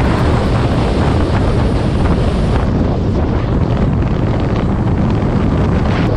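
Strong wind blowing across the microphone: a loud, steady rush with a heavy low rumble.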